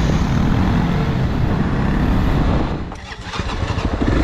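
Honda 300 cc single-cylinder trail motorcycle engine running with a dense rumble, which drops away about three seconds in to a slower run of separate, distinct pulses.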